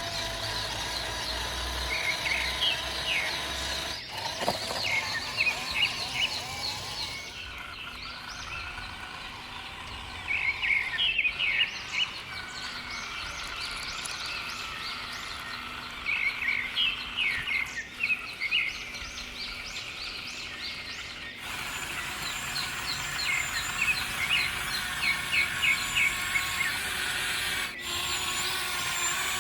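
Small birds chirping in clusters of quick, short, high notes over steady outdoor background noise. The sound cuts off and changes abruptly several times.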